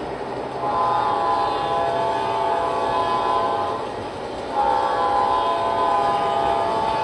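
G scale model diesel locomotive's sound system sounding its horn: two long, steady blasts, the second starting about halfway through.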